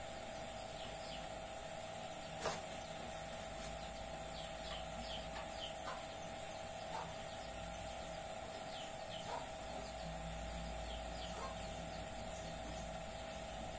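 Bird chirps: short falling notes scattered through, over a steady hum, with one sharp click about two and a half seconds in.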